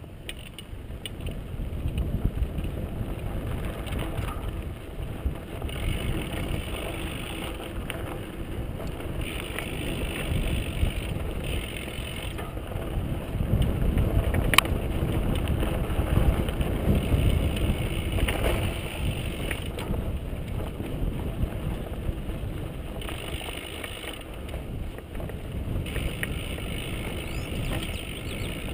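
Mountain bike coasting down dry dirt singletrack: the rear hub's freewheel ratchet clicks in spells over the rattle of the bike and the rumble of the tyres on dirt. A single sharp knock comes about halfway through.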